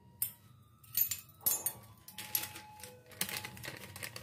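Irregular light clicks and taps of a spoon and spice containers being handled between additions to a bowl of dry batter ingredients.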